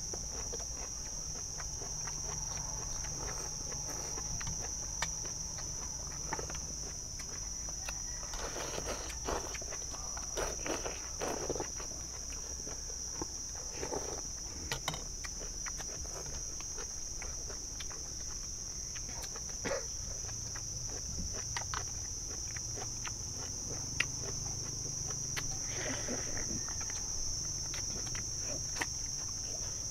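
Insects chirring in one steady high-pitched drone, with slurping of noodles and scattered clicks of chopsticks and spoons against steel bowls, the slurps clustered around a third of the way in and again near the end.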